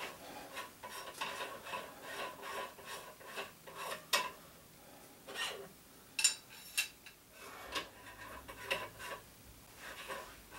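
Metal tools and rifle parts being handled on a workbench: irregular clinks, scrapes and light knocks, with a few sharper metallic clicks about four seconds in and again about two seconds later.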